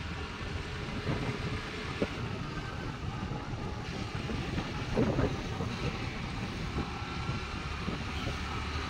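Scooter riding along a road: steady engine, tyre and wind noise buffeting the microphone, with brief knocks about two seconds in and a louder one about five seconds in.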